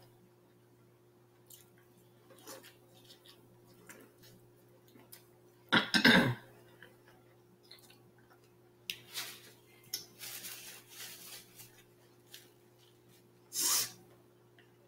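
Close-miked eating sounds: chewing corn on the cob and handling wet food, with scattered small mouth clicks and smacks, and two louder short bursts, one about six seconds in and one near the end. A faint steady electrical hum runs underneath.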